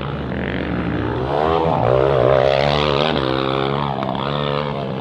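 Motocross bike engine revving up and down as the rider works the throttle and gears, loudest about two seconds in, over a steady low drone.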